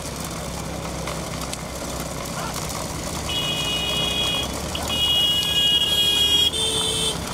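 A high-pitched vehicle horn sounds in two long, steady blasts over a continuous low rumble of vehicles, followed near the end by a brief tone at a different pitch.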